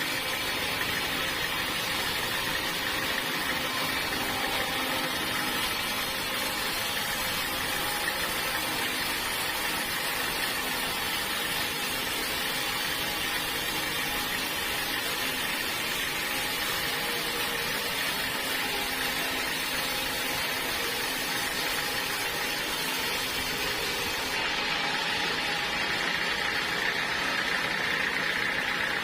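Bandsaw sawmill running steadily with a continuous motor hum and whine. About 24 seconds in, the sound turns a little louder and duller.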